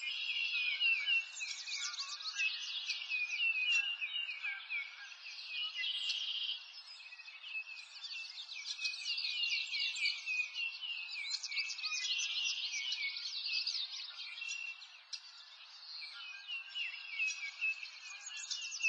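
Birds chirping and twittering over one another in a continuous chorus, with a buzzing trill that comes back about every six to seven seconds.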